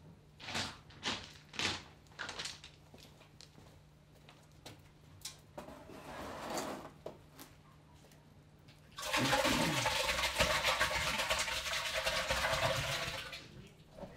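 Liquid poured from a bucket into a steaming vessel: a loud steady gushing splash for about four seconds, after a few knocks and scrapes of the bucket.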